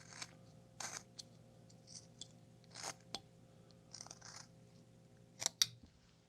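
Carving knife slicing small cuts into a basswood block: a series of short, crisp cuts at uneven intervals, the two loudest close together near the end.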